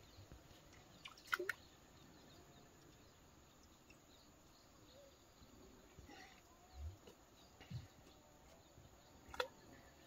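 Near silence: faint calm-river ambience with a few soft clicks and knocks scattered through.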